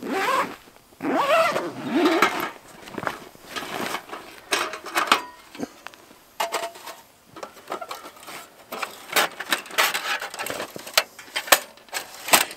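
Zipper on a soft stove carrying case pulled open, sliding in pitch as the pull speeds and slows. Then comes fabric rustling and a run of sharp clicks and light knocks as the folding wood stove's metal parts are lifted out of the case.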